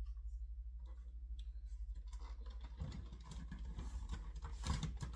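Clicking and rustling of a plastic smoke alarm being handled, sparse at first and busier in the second half, with sharper clicks near the end, over a steady low hum.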